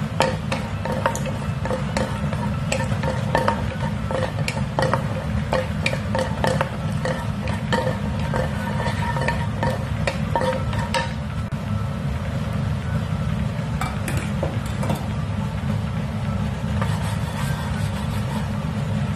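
Wooden spatula stirring and scraping prawns and diced meat around a non-stick frying pan, with many quick clicks and taps that thin out about halfway through, over a steady low rumble.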